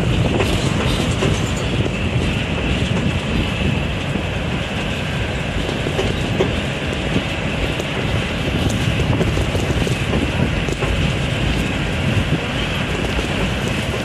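A safari vehicle driving on an unpaved track, heard from inside: steady engine and road rumble with continuous rattling of the body.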